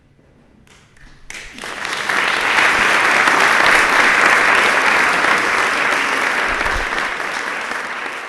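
Small audience applauding: the clapping starts about a second in, swells quickly to a full patter of many hands, then slowly tapers off.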